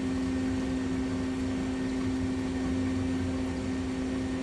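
B-axis live tool spindle of a CNC Swiss-type lathe running at a steady speed: an even whine over a low hum.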